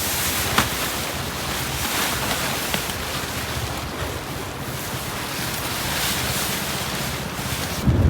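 Strong wind in a windstorm: a steady rushing hiss, with a few faint sharp ticks.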